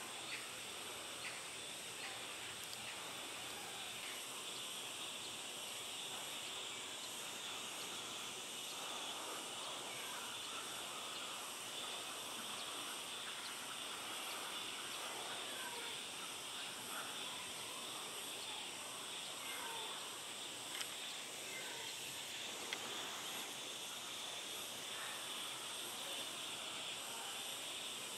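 Steady outdoor ambience: a constant high-pitched drone with a few faint chirps scattered through it, and a couple of small clicks about three-quarters of the way in.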